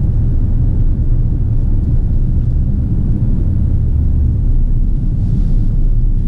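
Steady low rumble of a Porsche Cayenne driving along a country lane, engine and tyre noise heard from inside the cabin.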